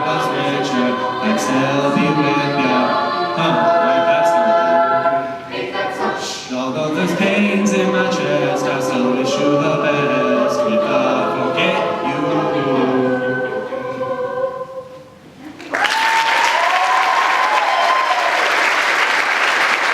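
A cappella vocal group singing the closing passage of a song in layered harmony, trailing off around 15 seconds in. Then audience applause and cheering break out suddenly.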